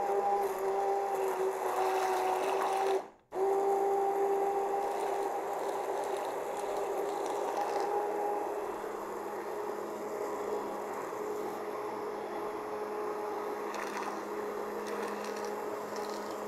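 Immersion blender motor whirring steadily as it purées soaked cashews with full-fat coconut milk into cashew cream. The sound cuts out for an instant about three seconds in, then runs on a little higher in pitch and a little quieter through the second half as the mix smooths out.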